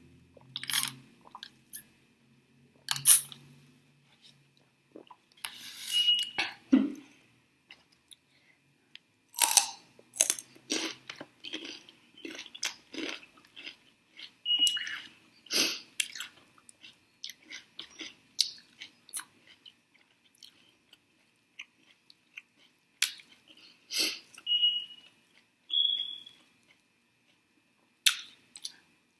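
Close-up eating sounds: irregular crunching bites and chewing, with pauses. A few short high squeaks are scattered among them.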